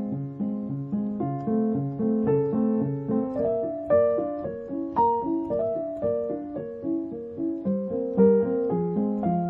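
Solo piano music: a steady, repeating figure of notes over a lower bass line.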